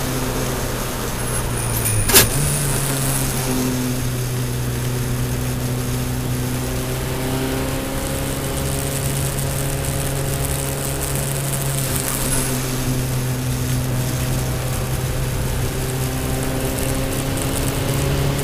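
Toyota Celica All-Trac's turbocharged four-cylinder engine heard from inside the cabin, running at steady high revs on track. About two seconds in there is a sharp click, and right after it the engine note steps up in pitch; later the note dips briefly a couple of times.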